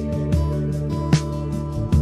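Background music: sustained chords over a steady beat, with about two to three strikes a second.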